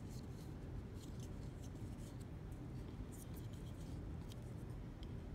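Faint handling noise as a small LiPo battery's plug is pushed into a plastic multi-port charger: a few light ticks and scrapes over a low steady hum.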